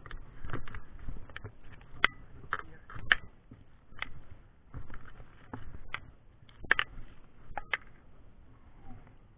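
Footsteps over rocks and shells on a low-tide shore: irregular sharp clicks and knocks, one or two a second, dying away near the end.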